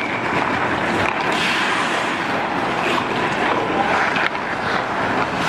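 Hockey skate blades scraping on rink ice, a steady rush of noise, with a few faint clacks of sticks and pucks.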